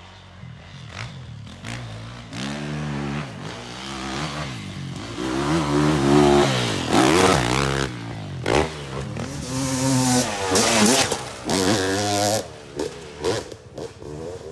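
Two-stroke dirt bike ridden hard on a dirt track, its engine revving up and down again and again as the rider works the throttle up a rutted hill climb. It grows louder to its loudest past the middle, then fades near the end.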